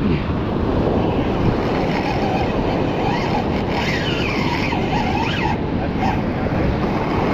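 Steady rush of surf washing over the rocks mixed with wind buffeting the microphone.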